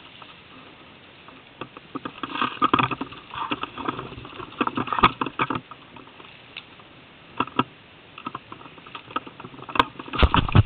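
Footsteps and rustling through undergrowth: leaves, twigs and branches brushing and crackling in irregular clusters. Near the end come louder bumps and deep thuds, like gear or the camera knocking against something.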